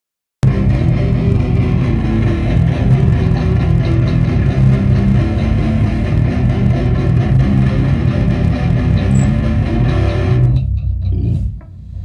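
Heavy metal band playing a loud electric guitar riff, with most of the weight low down. It stops about ten and a half seconds in and rings out briefly.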